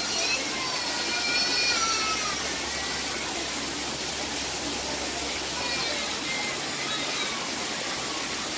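Steady rush of water from an artificial waterfall pouring down a rock wall into a pool, with faint voices in the background.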